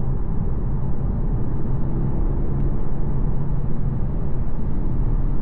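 Audi TT 2.0 TFSI on the move, heard from inside the cabin: steady engine and road rumble.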